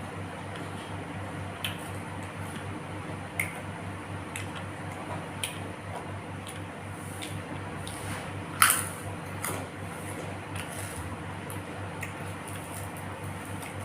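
Close-up eating sounds: wet chewing and mouth noises with scattered small clicks, the loudest a sharp click about two thirds of the way through. A steady low hum lies underneath.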